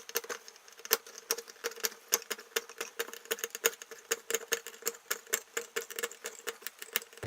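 Stainless steel credit-card multitool's can-opener hook cutting its way around a tin can lid, sped up: a fast, uneven run of sharp metal clicks, with a faint steady hum underneath.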